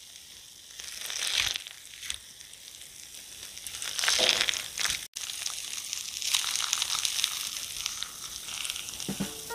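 Silicone spatula cutting into the crisp breadcrumb-and-Parmesan crust of an oven-baked pasta and scooping it from a glass dish: crunching and crackling, loudest twice, about a second in and again about four seconds in.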